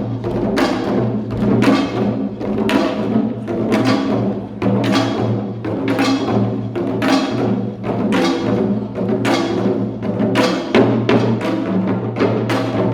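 Music led by drums, struck hard in a steady, driving rhythm, with a sustained low tone beneath.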